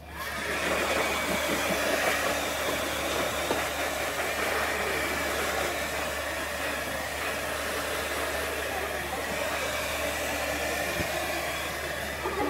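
Handheld hair dryer switched on, coming up to speed within about a second, then running steadily as it blows hot air over a foil balloon.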